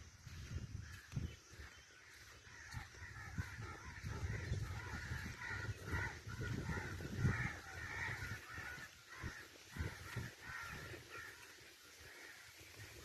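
Birds calling again and again in short, harsh notes, over a low, uneven rumble.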